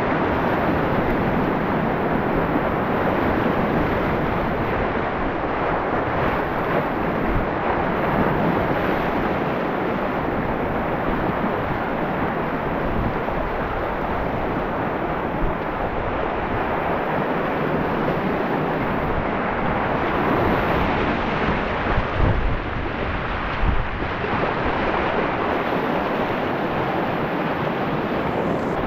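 Whitewater rapids of a river rushing steadily, with a few low bumps on the microphone a little past two-thirds of the way through.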